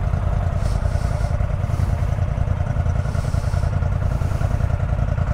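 Off-road vehicle's engine running steadily while driving over rough terrain, without clear revving.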